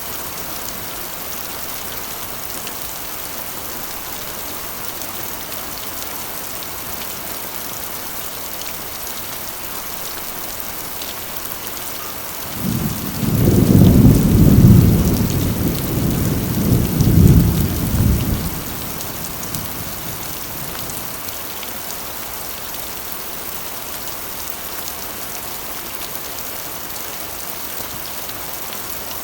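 Steady rain falling on a corrugated iron roof, with a roll of thunder about halfway through: a low rumble lasting some six seconds that swells twice before fading back into the rain.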